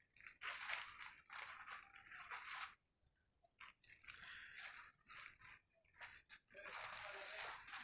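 A cow crunching and chewing Kurkure corn snacks, in two long stretches of crisp crunching with a short pause about three seconds in.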